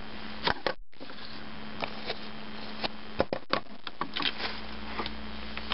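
Paper and a torn strip of painter's tape being handled, giving scattered short rustles and crinkles over a steady low hum. The sound cuts out for a moment about a second in.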